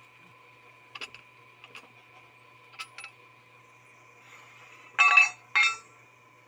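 Metal-on-metal clinks and clanks from handling the pipe and fittings of a well pump being pulled: a few light taps, then two louder ringing clanks about five seconds in. A faint steady high whine runs underneath.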